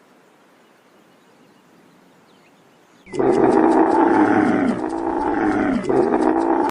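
Faint hiss, then about three seconds in, a large animal's loud, drawn-out calls in three parts, each falling in pitch, cut off abruptly.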